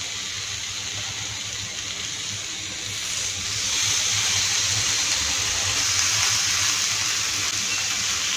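Minced-chicken kabab patties sizzling in hot oil on a grill pan as they are laid down one after another; the steady hiss gets louder about three to four seconds in, as another patty goes on.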